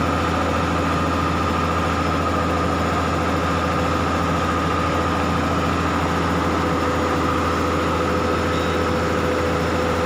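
Heavy earthmoving machine's diesel engine idling steadily, a constant low drone with no knocks.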